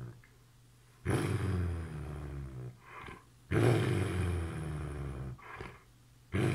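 Belgian Malinois giving two long, low growling grumbles, each starting loud and trailing off, with a shorter, higher sound just before each. This is the dog's drawn-out attention-demanding grumbling, a 'tantrum' for kisses rather than aggression.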